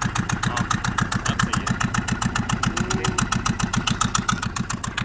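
Fishing boat's engine running steadily under way, an even rapid chugging of about nine beats a second.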